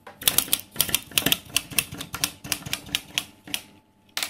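LEGO bricks clattering onto a wooden tabletop: a run of sharp, hard plastic clicks, about three a second, with a denser clatter near the end.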